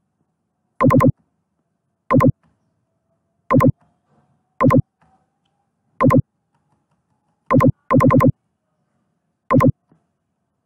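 Mouse clicks in a screen recording, heard as loud, short buzzy clicks in groups of two or three, about eight groups a second or so apart, as the font size is stepped down.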